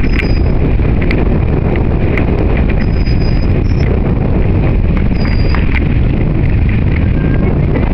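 Wind buffeting the microphone, with three short, high, steady blasts of a dolphin trainer's whistle: one at the start, one about 3 s in, one about 5 s in. Scattered clicks and a few brief chirps from the bottlenose dolphins come through the wind.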